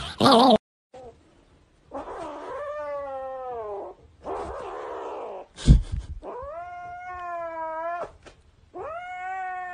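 Grey kitten giving long, drawn-out yowls, one after another, as it grapples a plush toy. A sharp thump about halfway through is the loudest sound.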